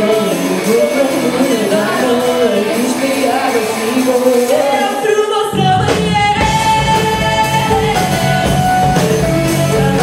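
Live pop-rock band playing: female vocals over electric guitar and keyboard. About five and a half seconds in, the bass and drums come in and the sound fills out.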